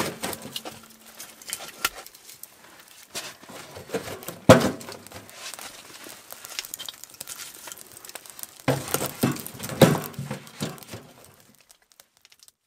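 Wood fire crackling and popping in the firebox of a small wood stove, with louder knocks about 4.5 s and again about 9–10 s in as logs are loaded onto the coals. The sound fades out near the end.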